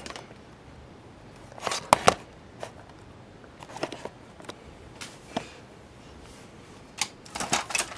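Scattered handling clicks and knocks from a camera being repositioned: a sharp double click about two seconds in, a few lighter taps, and a small cluster of knocks near the end.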